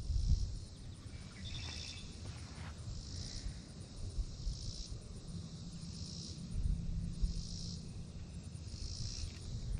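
Insects calling in a steady rhythm, a hissy pulse about every second and a quarter, over a low rumble.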